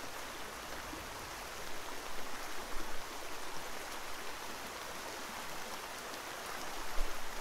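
Steady rushing hiss with a few brief louder crackles about two to three seconds in and again near the end.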